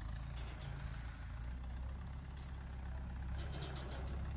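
Engine of a concrete mixer running steadily at idle, a low even hum, with a quick run of four or five light clicks about three and a half seconds in.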